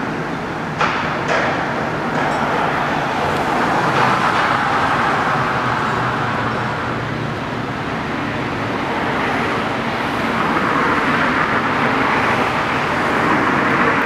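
Steady road traffic noise that swells and eases over several seconds, with two short knocks about a second in.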